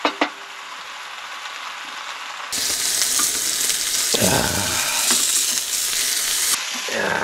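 Thick beef sirloin steak sizzling in a hot pan on a portable gas stove as it is turned with tongs. The sizzle is faint at first, gets much louder about two and a half seconds in, and drops back near the end.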